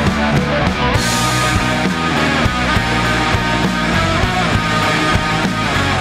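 Live rock band playing an instrumental passage without singing: a Les Paul-style electric guitar leads over bass and a steady drum beat.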